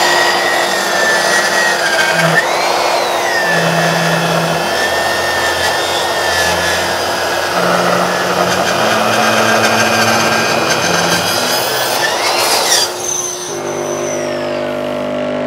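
Virutex SRI174T 160 mm plunge-cut circular saw cutting along its guide rail through the edge of a door, with the dust extractor running on its hose; the blade strikes a hidden pin in the door during the cut. The saw's whine rises briefly twice, and about thirteen seconds in the saw is switched off and winds down with a falling whine, while the extractor keeps running.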